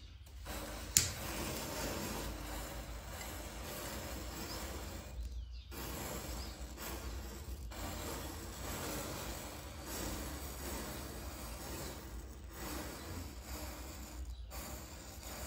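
Rows of matchsticks catching one after another, a steady fizzing crackle as each match head flares, with one sharp crack about a second in.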